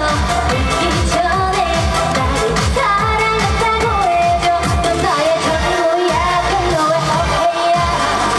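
Live trot medley: a woman singing an upbeat melody over a backing track with a steady drum beat.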